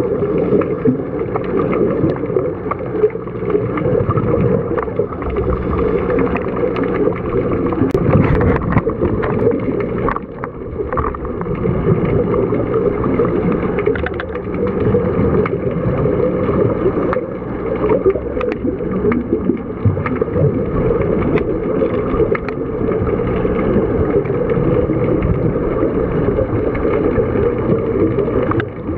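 Muffled underwater noise heard through a dive camera's waterproof housing: a steady low rumble with a faint hum and scattered small clicks.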